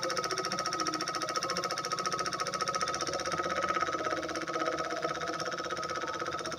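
Miniature diesel engine running steadily at a rapid, even firing rate, driving a small water pump.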